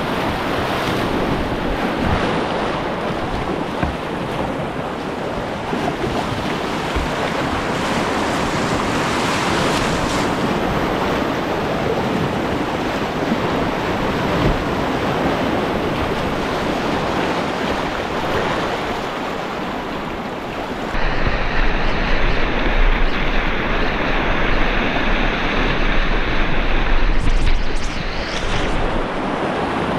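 Whitewater rapids rushing steadily around a kayak, heard close up from a camera on the boat. For about seven seconds in the last third, the sound turns louder and muffled, with a deep rumble.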